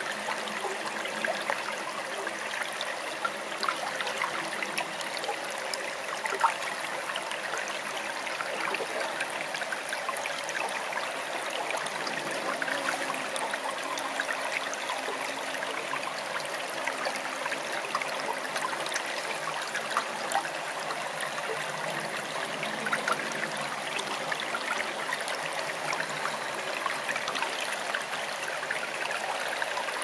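Forest stream running steadily, a continuous babble of moving water with many small splashes.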